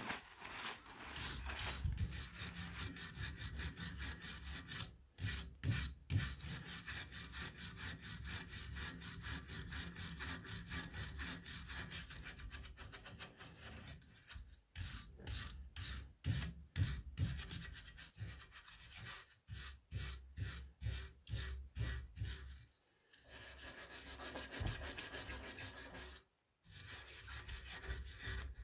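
Hand wire brush with brass bristles scrubbed rapidly back and forth over a rusty hatchet head held in a bench vise, scraping off the rust. The strokes come in quick, even runs, broken by a few short pauses.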